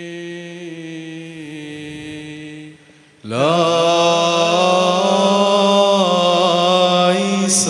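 Liturgical chant of the baptism rite, sung in long held notes by a male voice over the church's loudspeakers: a quieter phrase, a short break about three seconds in, then a louder phrase that slides up into its first note.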